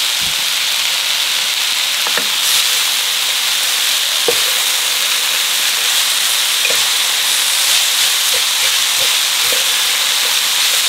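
Stir-fry of rice noodles, beef and bean sprouts sizzling steadily in a Sunbeam Duraceramic electric frypan as it is tossed with two wooden spatulas, with a few light knocks of the spatulas against the pan.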